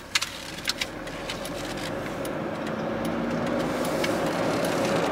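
Cab-over camper driving, heard from inside the cab: steady engine and road noise that grows slowly louder, with a few light clicks.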